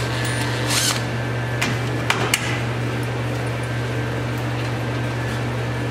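A cordless drill with a socket whirs in one short burst about a second in, backing a bolt out of an ultralight's lift-strut fitting. A few sharp metallic clicks of the bolt and hardware follow. A furnace hums steadily underneath.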